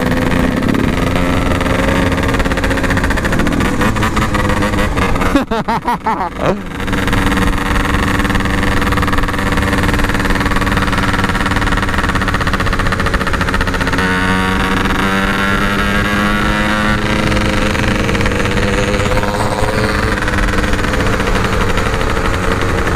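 Yamaha RX-King's two-stroke single-cylinder engine and exhaust running under way at a steady cruise. About five and a half seconds in the engine briefly drops off throttle, sputtering for about a second, then picks up again, with the pitch shifting a little later on.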